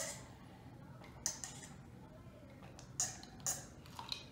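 A man drinking milk from a glass to cool a mouth burned by hot sauce: a few short, separate swallowing and breathing sounds between sips, with quiet gaps in between.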